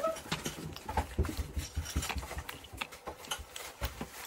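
A child chewing chewy Mike and Ike candies close to the microphone, noisily, like a horse: irregular mouth clicks and smacks several times a second with soft low thumps.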